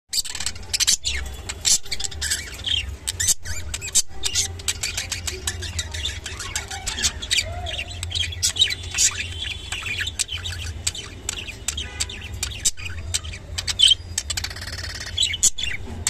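Budgerigars chirping and chattering rapidly while mating, many quick high chirps close together, over a steady low hum.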